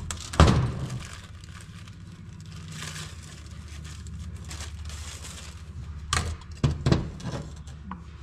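Clutch discs handled on a metal workbench: a clunk as a disc is set down about half a second in, rustling of plastic wrapping, and a few more knocks near the end, over a steady low hum.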